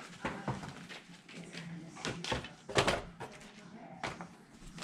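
Handling of cardboard boxes and PC parts: irregular rustles and knocks, the loudest a sharp knock just under three seconds in.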